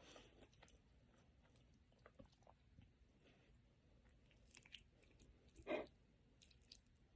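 Faint, close chewing of food with small wet mouth clicks. One louder, short mouth sound comes near the end.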